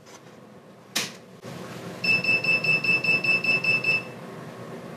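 Grizzly DRO readout console switched on with a click about a second in, then a low hum; its buzzer follows with a fast run of high beeps, about five a second for two seconds, as the display runs its power-up test.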